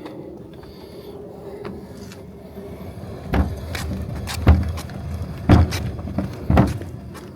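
A 95-gallon wheeled trash can being rolled on new rubber-coated plastic wheels: a low, fairly quiet rolling rumble, then from about three seconds in, loud thumps from the can roughly once a second.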